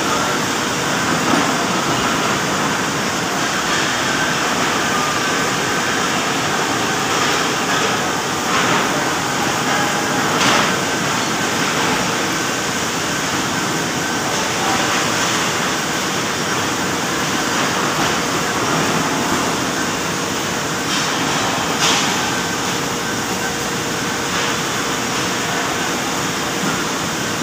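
Engine lathe boring a large steel workpiece: a steady machining noise with a faint hum and a few faint clicks as the boring bar cuts and peels off a long chip.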